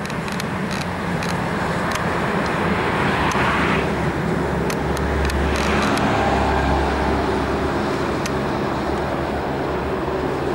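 Steam locomotive hauling a train of passenger coaches past at close range: a steady rumble of wheels on the rails with scattered sharp clicks, and a swell of hiss twice near the middle.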